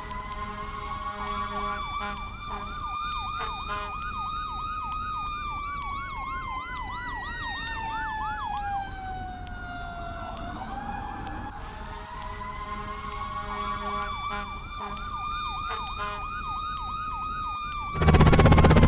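Fire engine siren: a slow wail rising and falling in pitch, layered with a fast yelp sweeping about three to four times a second. The yelp drops out for a few seconds midway. A loud burst of noise with a low hum cuts in near the end.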